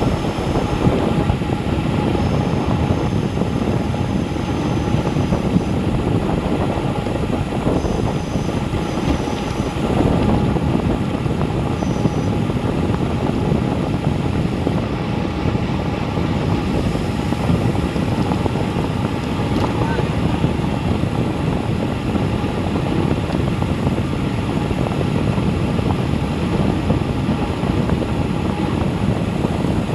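Steady rush of wind over an action camera's microphone on a road bike coasting downhill at close to 40 mph.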